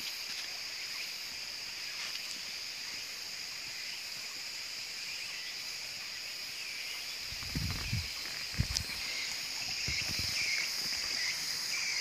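Steady, high-pitched chirring of an insect chorus in subtropical forest. A few short low thumps come in the middle.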